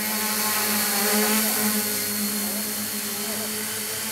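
Quadcopter's four brushless motors spinning Gemfan 9x4.7 propellers, a steady buzzing drone that is loudest about a second in and eases off as the craft comes down.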